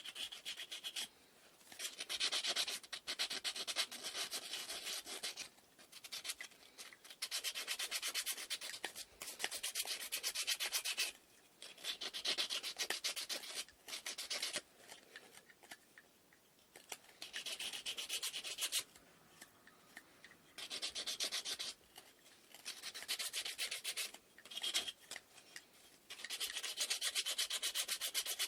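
Hand-sanding wooden inkle loom parts with sandpaper: runs of quick back-and-forth scratchy strokes, each lasting one to a few seconds, broken by short pauses.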